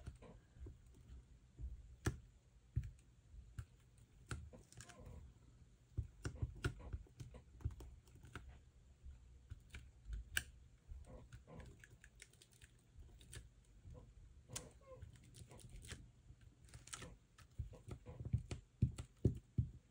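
Faint, irregular light taps and clicks of a paint stick being dabbed and worked over a stencil laid on vellum, over a low steady hum.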